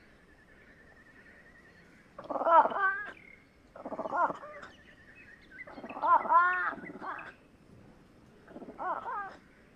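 Fishing cat calling four times, a few seconds apart, each call wavering in pitch, the third the longest at about a second and a half.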